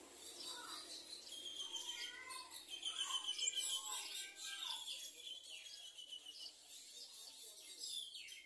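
Small birds chirping and twittering in quick high notes, with a fast trill a few seconds in and some falling whistled notes near the end.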